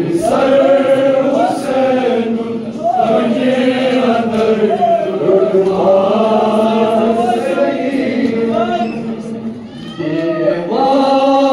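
Men's voices chanting a Kashmiri noha, a Muharram lament, many voices together in a slow, sustained melody, with a short break near the end before the chant resumes.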